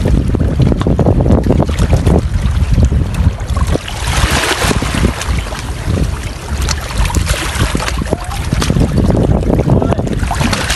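Wind buffeting the microphone, with small waves lapping and splashing against shoreline rocks; the splashing is strongest about four to six seconds in.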